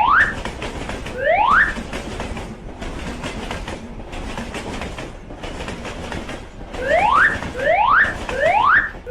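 A passing train's steady rushing rattle, dipping at an even beat about every second and a half. Over it come short rising whoops: one at the start, another about a second and a half in, and four in quick succession in the last two seconds.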